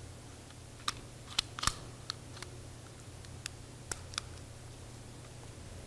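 Plastic lens barrel of a camera kit lens clicking faintly as it is twisted by hand: about eight small, separate clicks and ticks, spaced irregularly, over a steady low hum.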